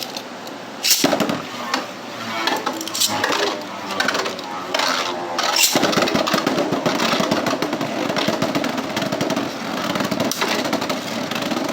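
Two Beyblade Burst spinning tops launched into a plastic stadium about a second in, then whirring and clattering as they spin and knock into each other repeatedly.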